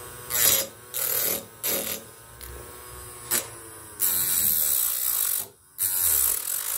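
Small hobby motor spinning a plastic bottle-cap disc that is pressed in short bursts against the edge of a wooden block, scraping loudly each time it touches and running more quietly between touches. There are several brief scrapes at first and a longer one about four seconds in.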